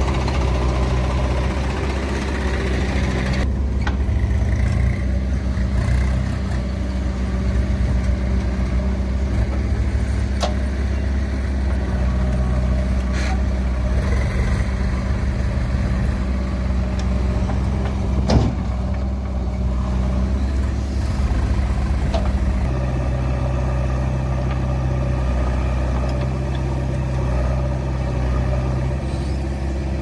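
Diesel engines of a JCB 3DX backhoe loader and a tractor running steadily while the backhoe digs and loads soil into the tractor trolley. The engine note changes a few times as the machine works, with a few sharp knocks, the loudest about 18 seconds in.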